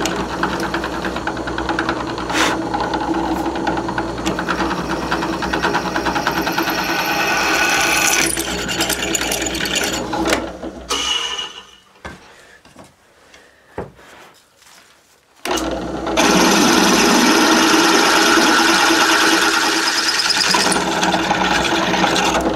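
Twist drill in a drilling machine boring into a cast iron casting: motor running with the rough noise of the bit cutting. About halfway through the cutting stops for a few seconds while the bit is backed out over the chip pile, with a couple of clicks, then drilling resumes, louder.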